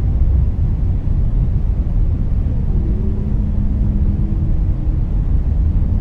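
Whale calls over a steady low rumble: faint drawn-out moans, with a long low moan held level through the second half.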